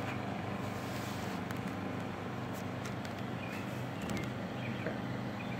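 Steady low motor hum, even throughout, with a few faint ticks and small high chirps over it.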